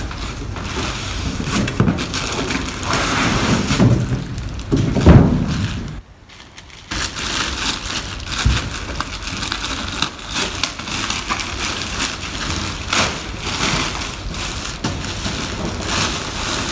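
Plastic wrapping crinkling and rustling as it is handled and pulled off padded carry bags, with a heavy thump about five seconds in and a short lull just after.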